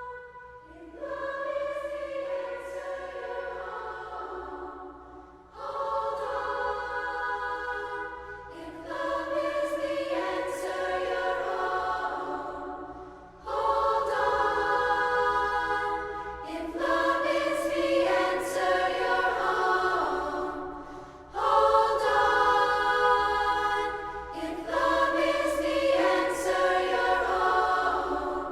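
Choral music: a choir sings long held chords in phrases of a few seconds each, with short breaks between them, over a steady low drone.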